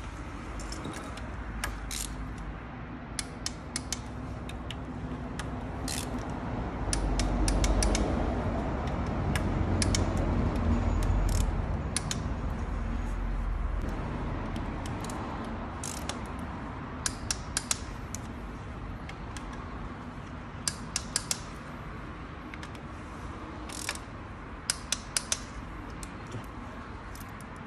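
Hand ratchet wrench clicking and metal tools clinking against the engine's bolts as they are tightened, sharp clicks coming in irregular quick clusters. A louder low rumble rises in the middle and fades.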